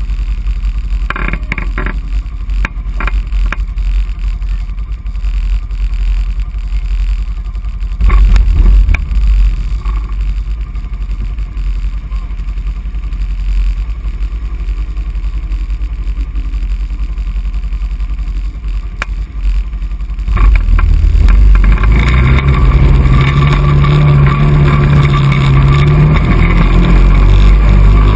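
ATV engines running, with a low steady rumble and a brief louder burst about eight seconds in. About twenty seconds in, the near ATV's engine comes up loud and stays loud as it drives off along the muddy trail.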